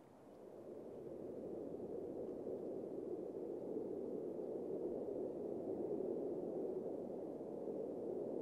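Jet noise from a Boeing F/A-18 Super Hornet's twin turbofan engines: a low, rushing rumble that swells over the first couple of seconds and then holds steady.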